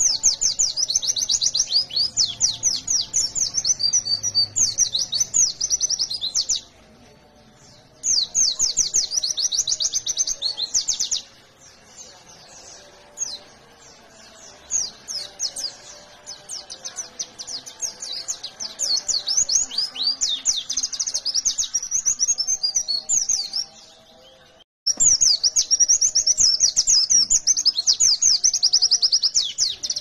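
Pleci (white-eye, Zosterops) singing in a gacor, fighter style: long bursts of rapid, high-pitched chirping trills, with scattered shorter chirps in a middle stretch before a final long burst. This is the rapid 'nembak' (shooting) song used as a lure to set other pleci singing.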